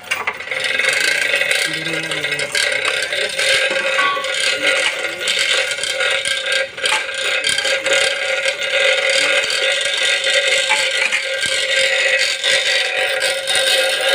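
A metal hoist chain rattling and clinking as it is handled, over a steady droning tone.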